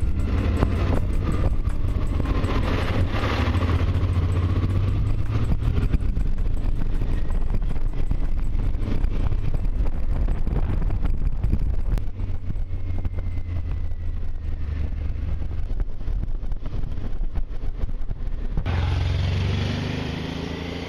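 Honda Transalp motorcycle heard from a camera mounted on the bike as it rides through town streets: steady engine running with wind and road noise. Near the end the sound changes abruptly to the bike heard from the roadside, its engine note rising as it accelerates away and fading.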